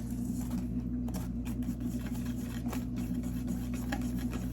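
Electric hand mixer beating boxed cake batter in a bowl: a steady motor hum with light ticks of the beaters against the bowl.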